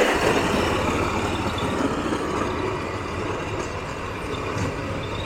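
A vehicle engine running steadily, slowly growing quieter.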